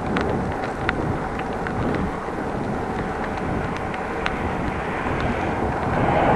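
Wind rushing over an action camera's microphone and bicycle tyre noise while riding, with scattered small clicks and rattles; the noise grows a little louder near the end.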